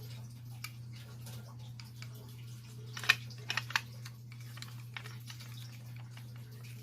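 Screwdriver driving the screw back into an ADT pull station's housing: small metal clicks and scraping, with a cluster of sharper clicks about halfway through. A steady low hum runs underneath.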